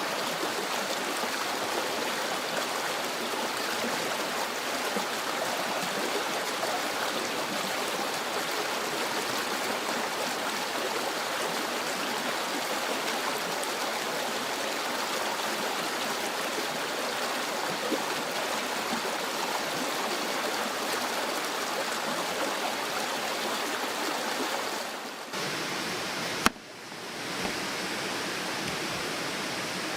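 Steady rushing of a mountain stream, a constant hiss of flowing water. Near the end it dips briefly and there is a single sharp click.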